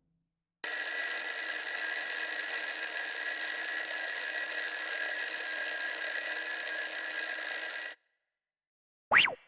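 Alarm bell ringing steadily for about seven seconds, then cutting off abruptly. A quick whoosh near the end.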